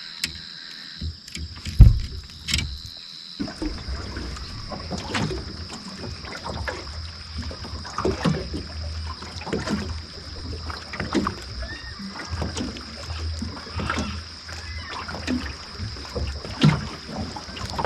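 Water lapping and slapping against a small aluminium fishing boat's hull, with irregular knocks, over a steady low hum that starts abruptly a few seconds in and a continuous high insect buzz.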